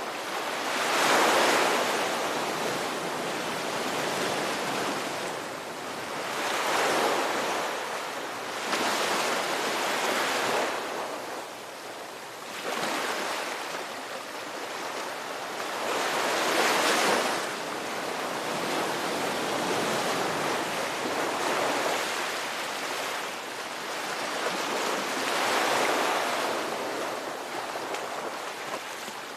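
Ocean surf: a steady wash of waves with about five louder surges that swell and fall away, the loudest coming about a second in and again near the middle.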